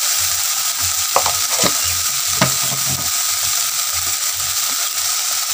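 Ground spice paste of garlic, ginger, onion and dried chilli, with turmeric and salt, sizzling in hot oil in a metal kadai while a steel spatula stirs and scrapes it. Sharper knocks of the spatula against the pan come a little after a second in and again about two and a half seconds in.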